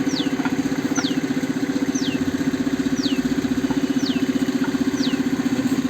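An engine running steadily at idle with a fast, even pulse. A high falling chirp repeats about every three-quarters of a second over it.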